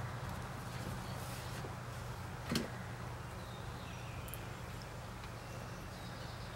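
Quiet outdoor background with a steady low hum and a few faint high chirps, broken by a single sharp click about two and a half seconds in.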